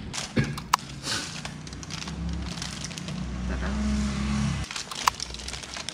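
Plastic carrier bags rustling and aluminium foil crinkling as takeout food is unwrapped, with a few sharp crackles. A low droning hum swells in the middle and cuts off suddenly about four and a half seconds in.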